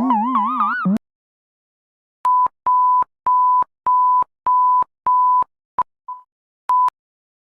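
Emergency Alert System–style alarm audio: a wavering, warbling electronic tone cuts off about a second in, and after a short gap comes a string of seven even, single-pitch beeps about every 0.6 s, followed by three shorter, irregular blips.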